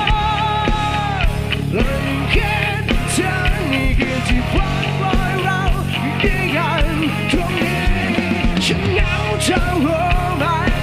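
Rock music with a singing voice and held melodic lines over a steady bass and drum beat.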